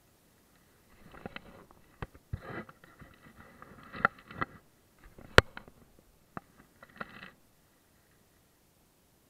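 Handling noise from fishing tackle close to the microphone: irregular sharp clicks and short rasping scrapes, with one sharp click about five and a half seconds in. The noise stops after about seven seconds.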